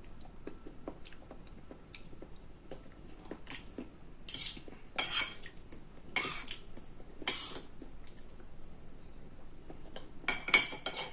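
Cutlery clinking and scraping against a plate during a meal: scattered small clicks, with a few louder scrapes about four, five, six and seven seconds in and again near the end.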